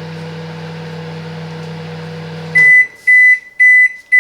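Silvercrest SMWC 700 D1 microwave oven running with a steady hum, which cuts off about two and a half seconds in. Four short high beeps follow, the end-of-cycle signal that the defrost programme has finished.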